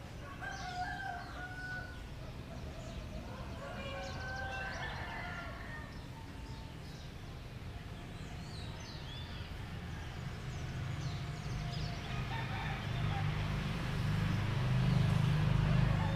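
Roosters crowing twice in the first few seconds, with small birds chirping. From about two-thirds of the way through, a low engine rumble builds and is loudest near the end.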